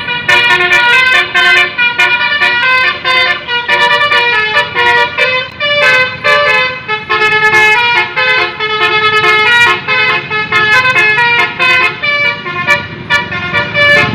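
A bus's Basuri 'telolet' musical air horn playing a fast tune of short stepped notes, several tones sounding together.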